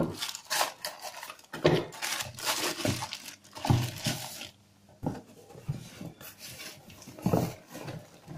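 Cardboard box and plastic wrapping rustling, crinkling and scraping as a mixer grinder's motor unit is pulled out of its packing, with a few knocks. The noise is irregular, with a short lull about halfway through.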